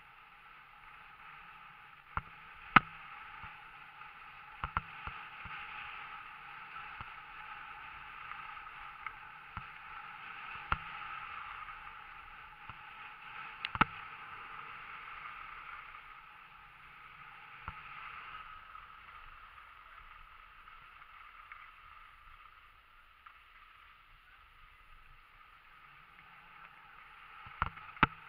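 Skis sliding and scraping over packed piste snow on a downhill run: a steady hiss that swells and fades through the turns. Sharp knocks now and then, the loudest about three seconds in and another near fourteen seconds, with a few more near the end.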